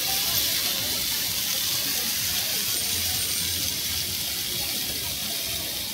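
A steady hiss.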